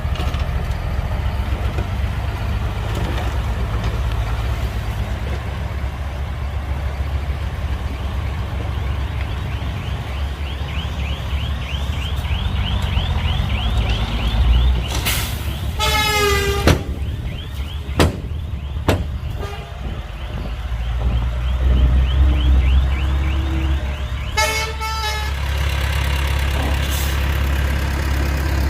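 Heavy diesel engines of a bulldozer and dump truck running steadily at a work site. A short horn toot sounds about halfway through and another about three quarters in, with a couple of sharp knocks in between.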